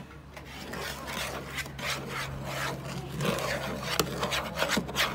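Spoon stirring dry cornmeal mix in a mixing bowl: repeated gritty scraping strokes, about two to three a second, growing louder in the second half.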